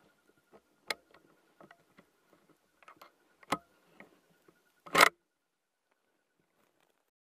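Scattered small clicks and knocks of a rifle and gear being shifted, with a much louder short sharp crack about five seconds in.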